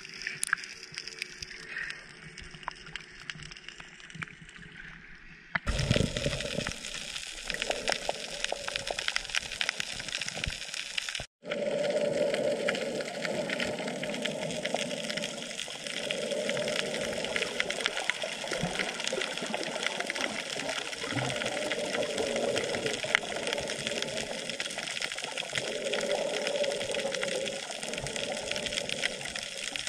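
Sea water rushing and splashing around a snorkeler's camera, a steady noisy wash, quieter at first, with abrupt changes about six and eleven seconds in.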